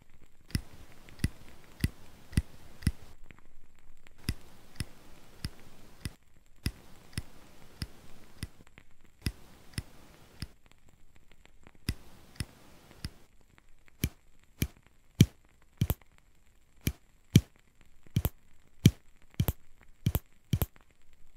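Nail nippers snipping toenails: a long series of sharp clicks, about two a second in short runs with brief pauses, louder in the last third.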